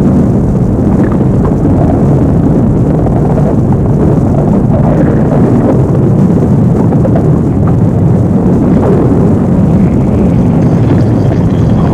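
Stomach growling boosted to ear-splitting, heavily distorted loudness: a steady, dense, unpitched rumble.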